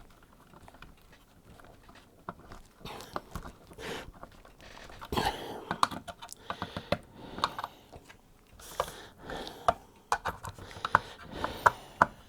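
Irregular light clicks and scrapes of a small screwdriver working the screws of a wire clamp, with handling of the ferruled wires; a few sharper ticks come in the second half.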